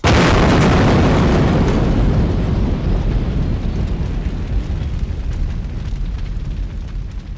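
A sudden loud boom, like an explosion effect, followed by a long rumbling tail that slowly fades away over several seconds.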